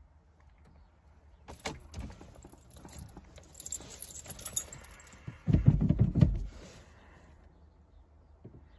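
Car keys jangling and clicking as the ignition key of a Volkswagen Golf 4 1.9 TDI is turned to the on position, with the diesel's glow plugs preheating before a cold start. Past the middle comes a louder low rumble lasting about a second.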